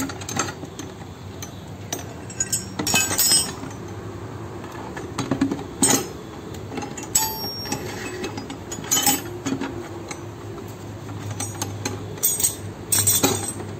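Steel hand tools (T-handle wrenches, spanners, screwdrivers) clinking against each other and the plastic jug as they are handled and slotted into a homemade toolbox, with scattered sharp clinks that come thicker near the end. A steady low hum runs underneath.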